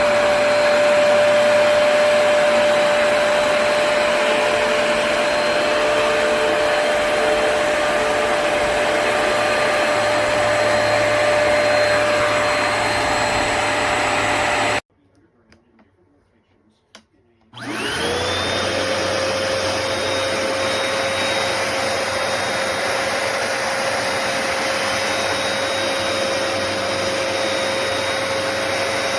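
Hoover PowerDash Pet+ compact carpet cleaner running with a steady motor whine. About halfway through it stops abruptly, leaving a few seconds of near silence with a small click. It then starts again, its whine rising in pitch as the motor spins up before settling steady.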